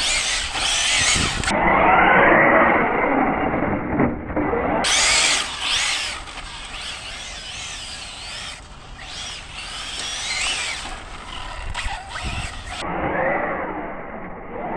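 Arrma Felony 6S RC car's brushless motor and drivetrain whining, the pitch sweeping up and down as it accelerates and slows. In stretches the audio is slowed down, making the whine deeper and duller.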